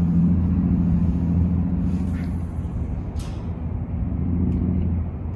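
Low, steady engine rumble of a motor vehicle, with a deep hum, fading away near the end.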